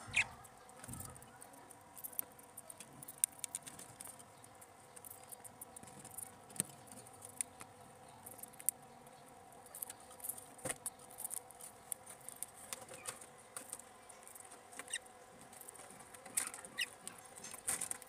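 Budgerigars in a cage: scattered short clicks and scratchy scrabbling with a few brief high chirps.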